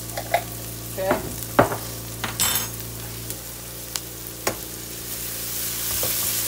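Diced onions and minced garlic sizzling in oil in a nonstick frying pan, with a few sharp clicks and knocks of a utensil against the pan, over a steady low hum. About five seconds in the sizzle grows louder as the garlic is stirred in.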